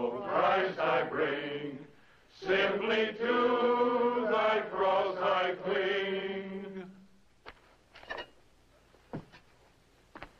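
A congregation singing a hymn together in held notes: a short phrase, a brief breath, then a longer phrase that ends about seven seconds in. A few faint knocks follow.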